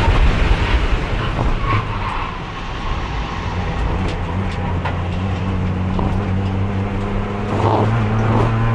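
Racing car engine heard from onboard, held in 4th gear on a failing transmission that has no 3rd gear and will not shift at speed. The engine note drops back about two and a half seconds in, then pulls steadily and climbs in pitch near the end.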